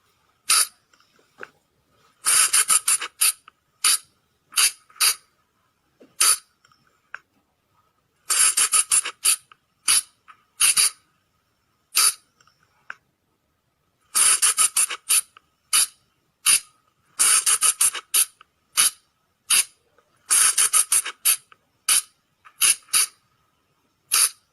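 Sunda flying lemur (colugo) calling: short, sharp, high-pitched squeaks, some single and some in quick runs of several, repeated over and over with short silences between.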